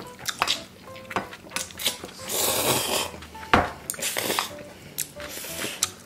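People slurping noodles, with one long slurp about two seconds in and shorter ones later, and chopsticks clicking against glass bowls.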